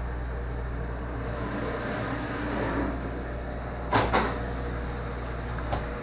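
Commercial door-type dishwasher running its cycle: a steady low hum under a rushing noise, two sharp metallic clanks about four seconds in, and a click near the end as the low hum cuts off.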